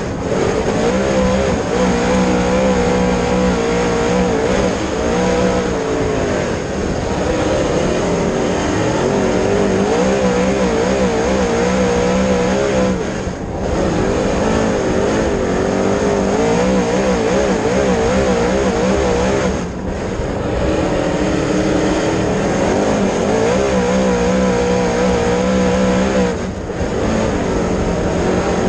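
Dirt late model race car's V8 engine running hard at racing speed, pitch rising and falling with the throttle, with a brief lift off the throttle about every six to seven seconds.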